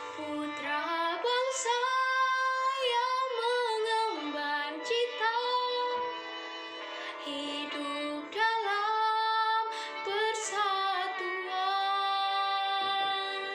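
A teenage girl singing solo, her voice holding and bending long notes over instrumental backing music.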